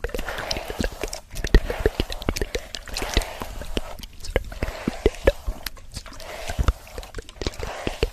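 A hairbrush stroked through hair close to the microphone, in repeated swishes of about a second each, with many sharp crackling clicks over them.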